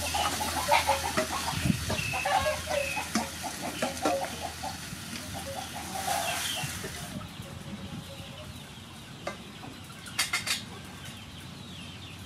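Hens clucking in short repeated notes, busiest in the first half, over a steady hiss from the pot as sliced jicama is tipped into hot oil and garlic and stirred with a wooden spatula. The hiss stops about seven seconds in, and a few sharp knocks of utensils on the steel pot come about ten seconds in.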